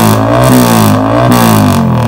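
Yamaha R15 V3's single-cylinder four-stroke engine revved in quick repeated throttle blips, about two a second, through a tuned exhaust meant to sound like a big bike. Near the end it drops back toward idle.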